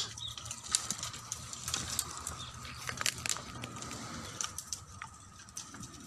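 Scattered crackles and snaps of dry twigs and leaf litter as goats move and browse through the brush, over a faint steady tone.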